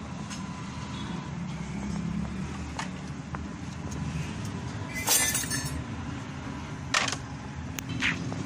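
Steady low street-traffic rumble with a few sharp clinks and clatters of steel dishes and utensils. The loudest is a clattering burst about five seconds in, followed by two shorter clinks near the end, the last one ringing.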